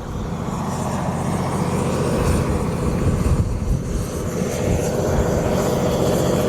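Wind buffeting the microphone: a loud, rough low rumble that rises and falls irregularly.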